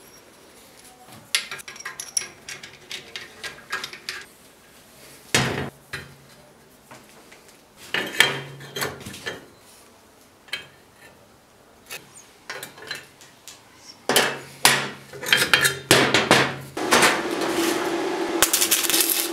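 Metal parts clinking and knocking in several bunches of quick taps, as pieces of a metal stand are handled and fitted together. A steadier, continuous mechanical sound starts about two seconds before the end.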